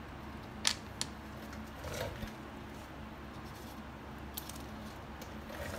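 A few light clicks and taps of a rubber gasket being handled and fitted into the inspection opening of a Harley-Davidson Sportster's chrome primary cover, two sharp ones just under a second in and fainter ones near the end, over a steady low hum.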